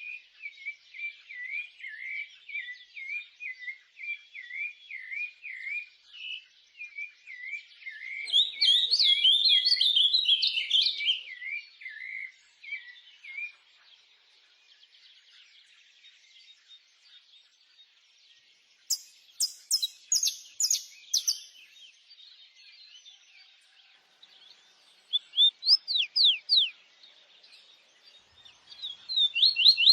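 Small birds chirping and singing. A run of short repeated chirps builds to a louder jumble of calls about eight seconds in. After a quieter stretch come bursts of sharp high notes and quick falling whistles.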